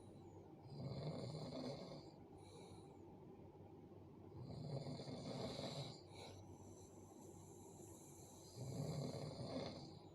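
A sleeping person snoring heavily: three loud snores about four seconds apart, each lasting over a second.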